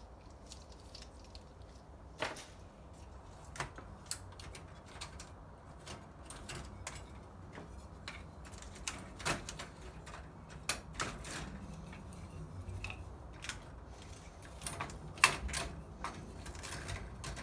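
Scattered clicks, light knocks and metallic clinks of hand tools and small parts being handled while a ceramic hob is taken apart, the sharpest clack about fifteen seconds in.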